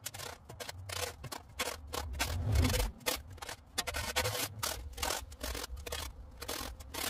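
A long-handled scraper's blade scraping packed dirt and grass off the asphalt along a curb, in quick, irregular repeated strokes, a few per second.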